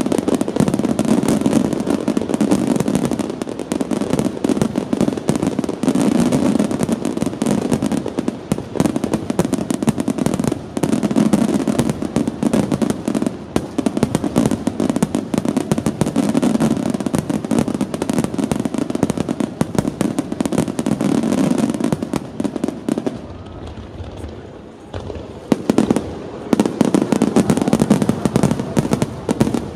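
Aerial firework shells bursting in a dense, continuous barrage of bangs, easing off briefly about three-quarters of the way through before another round of bursts.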